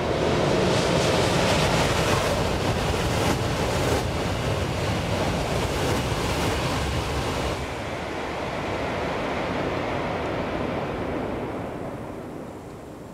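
A Tohoku Shinkansen bullet train passing at high speed: a loud rush of wheels on rail and air that holds for about seven seconds, then drops off and fades away as the train recedes.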